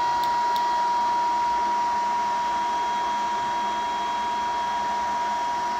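Solar inverter running under load: a steady fan-like rush with a continuous high electronic whine.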